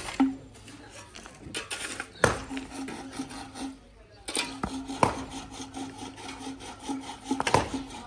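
Fast, even rasping strokes of a tool worked back and forth, about six or seven a second, broken by a few sharp knocks and a short pause in the middle.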